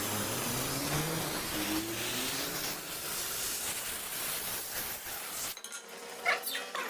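Machine-shop noise: a steady hiss with a low hum rising in pitch, which cuts off abruptly about five and a half seconds in, followed by a few light metallic clinks.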